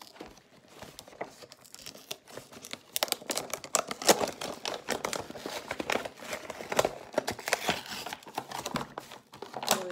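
Action figure's plastic blister packaging crinkling and crackling as hands pull and tear it away from its cardboard backing card. The crinkling becomes busier and louder from about three seconds in.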